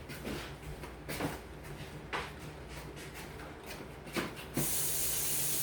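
Kitchen sounds: a few light clinks and knocks of utensils on cookware, then near the end a loud, steady hiss that starts abruptly.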